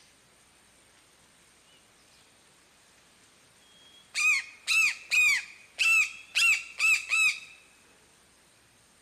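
A bird calling: seven loud, clear notes in quick succession, about two a second, each rising and then falling in pitch. They begin about four seconds in, over a faint steady high hiss.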